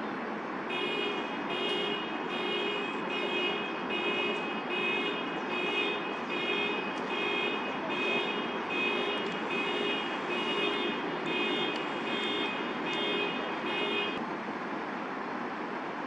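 An electronic beep repeating at an even pace, a little more than one a second, starting just under a second in and stopping about 14 seconds in, over a steady background hiss of city noise.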